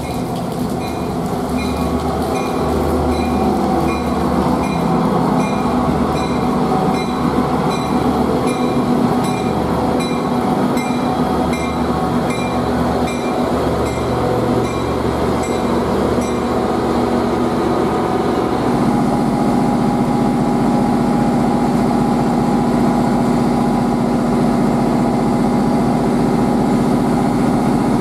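Tri-Rail diesel-electric commuter locomotive pulling into the station and stopping, with a bell dinging steadily about one and a half times a second until just past halfway. From about two-thirds of the way in, the locomotive's diesel engine hums steadily at idle with the train stopped.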